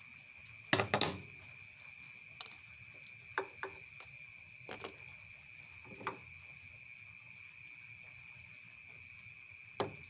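Hands handling hard plastic washing-machine parts: a cluster of knocks about a second in, then scattered light clicks and taps. A steady high-pitched tone sits behind them.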